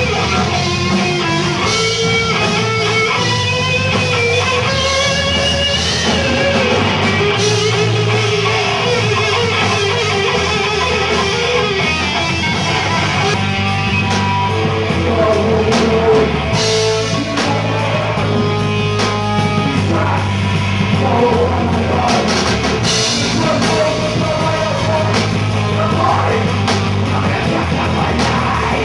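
Live heavy rock band playing: electric guitar and drum kit, with a singer.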